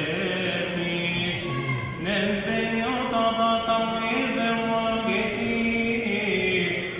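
A priest's male voice chanting a Coptic liturgical hymn solo, holding long notes with ornamented melodic turns. There is a short break for breath about two seconds in.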